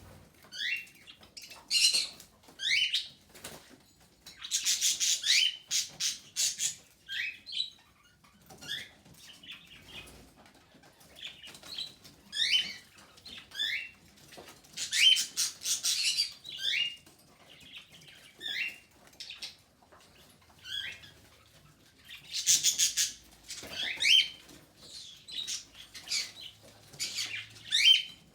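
Budgerigars chirping and chattering in short sliding calls, with several bursts of rapid clicking or rattling.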